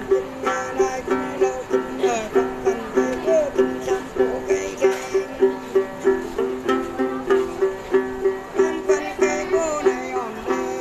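Đàn tính gourd lute plucked in a steady repeating rhythm, two low notes alternating at about two to three strokes a second. A woman sings Then over it in wavering, gliding phrases, in two stretches: one near the start and one in the second half.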